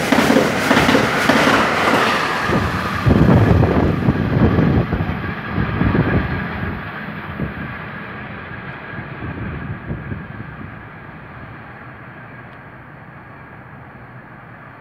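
Amtrak Carolinian's stainless-steel Amfleet passenger cars rushing past at speed, with a clatter of wheels over the track loudest a few seconds in. The sound then fades away over several seconds as the train recedes.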